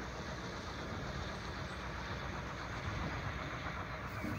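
Distant diesel locomotive engine running with a steady, low drone as the train approaches.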